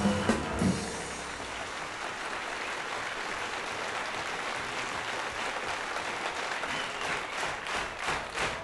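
Jazz trio's closing chord with a couple of drum accents, then audience applause; near the end the applause falls into steady rhythmic clapping, about three claps a second.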